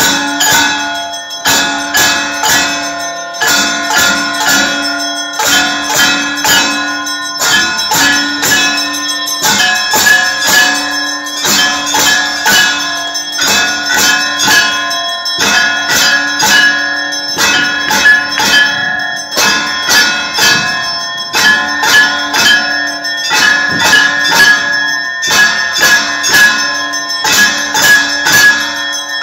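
Hindu temple bells rung continuously with rapid, overlapping strikes, their ringing tones sustained throughout.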